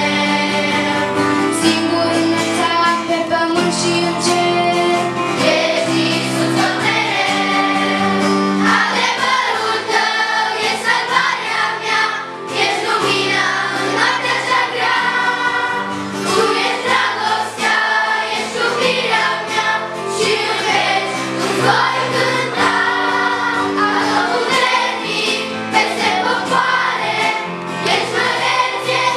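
Children's choir singing a Romanian Christian praise song together, over an instrumental accompaniment with a steady, held bass line.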